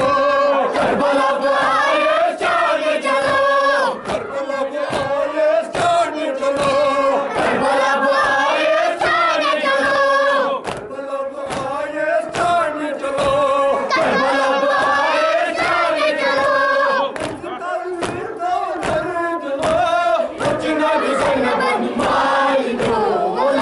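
Crowd of men chanting a Kashmiri noha (Shia mourning lament) in unison, with steady rhythmic slaps of chest-beating (matam) in time with the chant.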